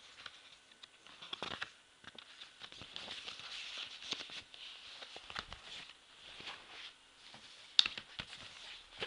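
Handling of a DVD keep case and its paper booklet: rustling and light scattered clicks of plastic and paper, with one sharp click near the end.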